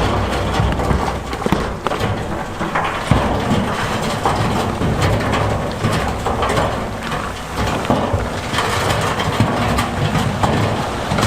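Rocks clattering and knocking against each other and against steel in an irregular, dense run of impacts, over the low rumble of a heavy diesel engine working under load.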